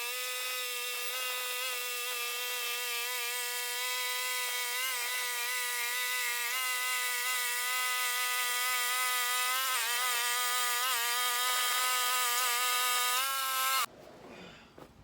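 Portable band sawmill running through a cedar log: a steady, high, whining engine-and-blade sound whose pitch dips briefly about ten seconds in as it takes load, then recovers. It starts and cuts off abruptly.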